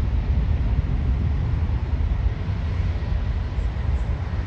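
Twin jet engines of a Boeing 767-300ER heard from across the airfield as a low, steady rumble, mixed with wind buffeting the microphone.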